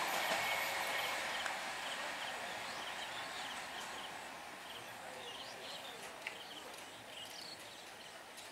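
Howrah–Katwa EMU local train's rolling noise fading steadily as it moves away round the curve. Short high chirps repeat every half second or so, and there is one sharp click a little after six seconds.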